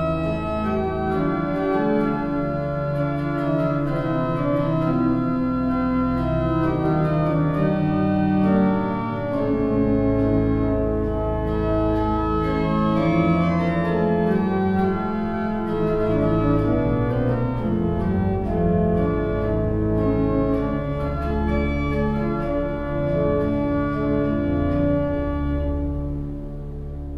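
Organ music: slow, sustained chords over deep bass notes, getting quieter near the end.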